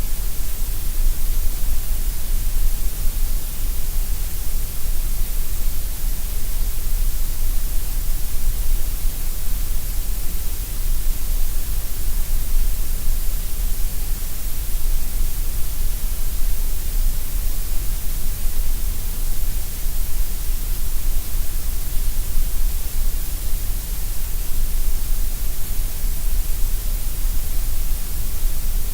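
Gray noise: a steady, unchanging synthetic hiss, with more weight in the deep rumble and the high hiss than in the middle.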